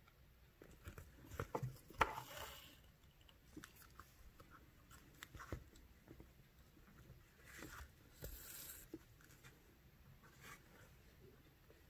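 Faint handling sounds of bead embroidery: scattered small clicks and ticks of a needle and beads, with a sharper click about two seconds in and two soft rustles, as thread is drawn through the beaded fabric backing.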